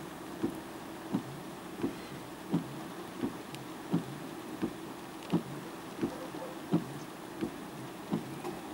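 Dull knocks repeating very evenly, about three every two seconds, over a steady faint hiss.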